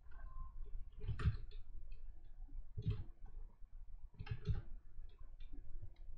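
Computer mouse clicking, about four scattered clicks, over a faint steady low hum.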